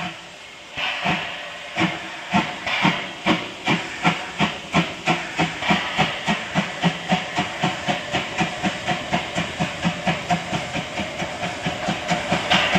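Narrow-gauge steam tank locomotive 99 782 (DR class 99.77–79) pulling away with its train. A burst of steam hiss comes about a second in. From about two seconds in, exhaust beats follow at roughly two a second and quicken steadily, with steam hissing from the open cylinder drain cocks.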